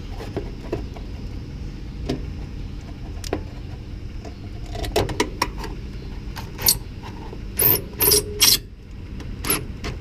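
Hands working wires and capacitors in an air conditioner condenser's control box: scattered clicks and rustles, with three louder ones in quick succession about three-quarters of the way through, over a steady low hum.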